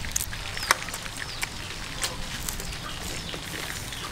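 Irregular sharp crunches as a cooked spider is bitten and chewed, with birds chirping in the background.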